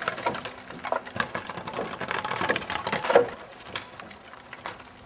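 Dense, irregular crackling and popping of a building fire burning, thinning out after about three seconds.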